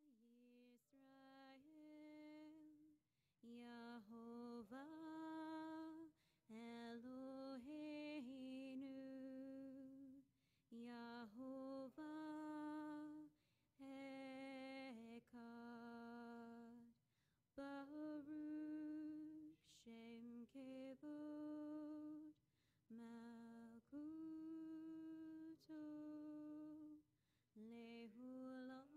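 A woman singing a slow melody in long held notes with slight vibrato, in quiet phrases with short breaks between them.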